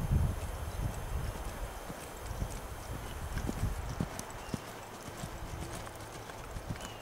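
Hoofbeats of a ridden reining mare jogging on the soft dirt of an arena: a run of dull, uneven thuds.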